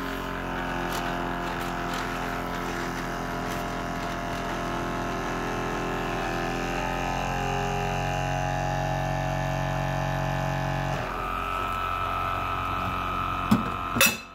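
Sparkel carbonated water maker's pump running with a steady drone while it carbonates the bottle of water. It is powered straight from a 12-volt pack that bypasses the machine's failed circuit board. Its tone shifts about eleven seconds in, and two sharp clicks come near the end.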